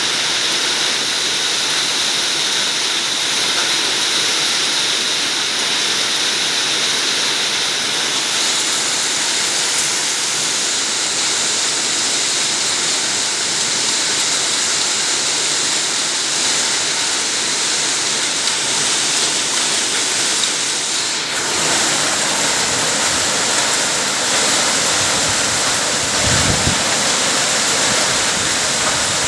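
Heavy rain and hail pouring down in a dense, steady rush of noise. The tone shifts a little past two-thirds through, and a brief low rumble follows a few seconds later.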